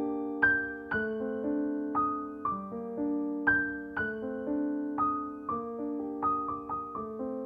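Background music: a solo piano plays a slow melody over held lower notes, each struck note fading as the next one comes.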